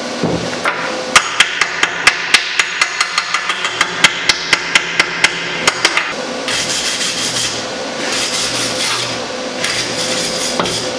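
Hammer rapping quickly on freshly welded steel, about four sharp metallic strikes a second for several seconds. Then a steady rasping scrub on the metal.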